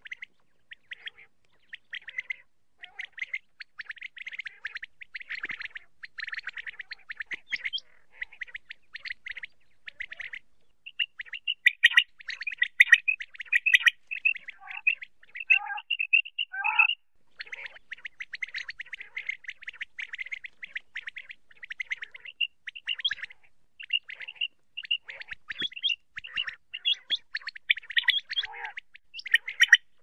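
Common quail calling: rapid runs of short high chirping notes with brief pauses, and a few lower notes sliding downward about halfway through.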